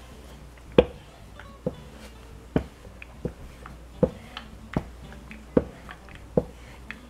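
Cloth-covered lefse rolling pin worked back and forth over soft potato dough on a floured pastry board, with a short knock at each stroke, about eight in all, a little under a second apart.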